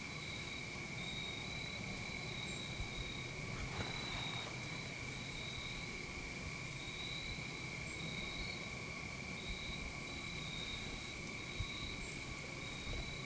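Insects chirring steadily outdoors: one unbroken high trill, with a second, higher trill that pulses on and off.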